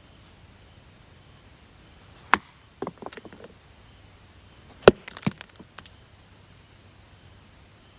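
Sharp woody cracks and knocks: a single crack, a quick cluster of smaller ones, then the loudest crack about five seconds in followed by a few lighter cracks.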